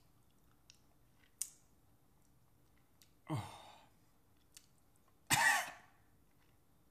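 A man's short, low vocal sound falling in pitch about three seconds in, then a louder cough near the end, his reaction to the salty, fishy taste of a canned anchovy he has just swallowed. A few faint clicks come in between.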